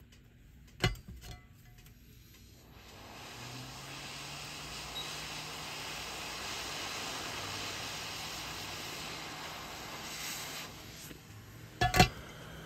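Heat gun blowing hot air at about 330 degrees to loosen a soldered flex cable. It runs as a steady hiss with a low hum for about eight seconds, starting about three seconds in and stopping near the end. Sharp clicks come about a second in and again just before the end.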